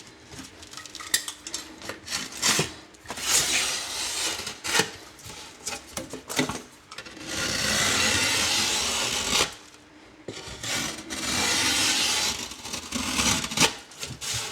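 Utility knife scoring and scraping drywall, with short knocks and clicks of handling the board and tools, and one long steady cut stroke of about two seconds past the halfway point.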